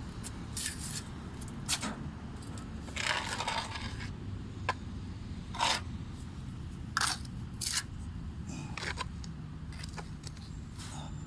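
A hand tool scraping over a surface in short, irregular strokes, with one longer scrape about three seconds in, over a steady low rumble.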